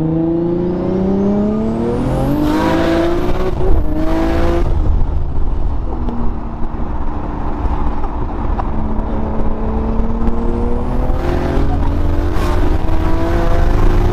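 Built R33 Skyline GT-R's 2.8-litre stroked RB26 straight-six with a single big turbo, heard from inside the cabin under hard acceleration through the gears. The pitch climbs, drops back at each gear change with a short rush of hiss, then climbs again, and a high turbo whine rises with it.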